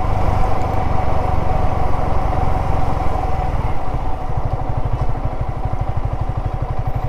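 Yamaha R15 V3's single-cylinder engine running at low speed, its firing turning into an even, rapid beat about four seconds in.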